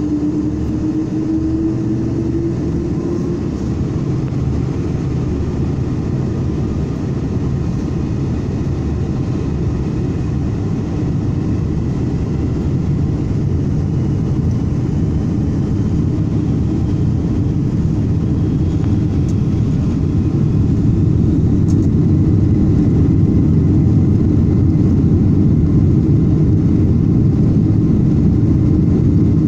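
Boeing 747-400 jet engines heard from inside the cabin, a steady heavy rumble with a whine that rises slightly and fades in the first few seconds. The rumble grows louder about two-thirds of the way through as thrust builds for takeoff.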